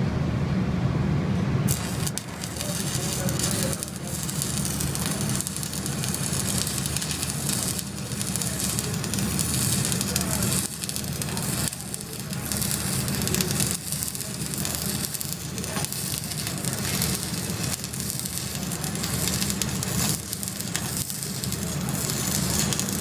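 Welding arc crackling and sizzling like frying bacon, starting about two seconds in and carrying on with a few brief breaks.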